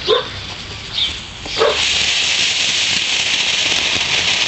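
A 'Golden Flower' ground fountain firework catches about a second and a half in and sprays sparks with a steady, loud hiss. Before it catches there are a couple of short barks.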